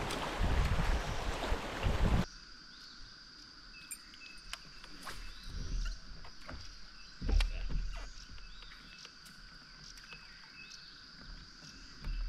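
Wind buffeting the microphone over rushing river water for the first two seconds, cut off abruptly. Then a quieter stretch: a steady high-pitched chorus of calling animals with repeated short chirps, scattered light clicks and knocks, and one heavier thump about seven seconds in.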